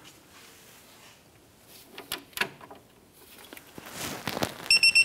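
Torque wrench being pulled on a suspension bolt: a few light clicks, then wrench and metal work sounds building up, and near the end a short, high, pulsing electronic beep, the signal that the set torque of 81 foot-pounds has been reached.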